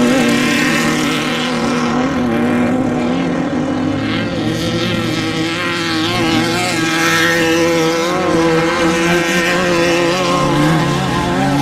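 Off-road desert race vehicle engine running hard at high revs, its pitch holding fairly steady with small wavers.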